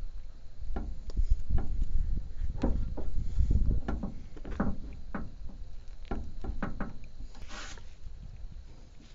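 Irregular clicks and knocks of a hand wrench working a steel hydraulic hose fitting, over a low rumble. A short rustle comes about seven and a half seconds in.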